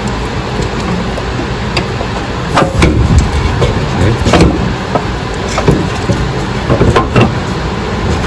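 Knocks and clatters from a replacement engine mount being worked into place by gloved hands, over a steady background rush.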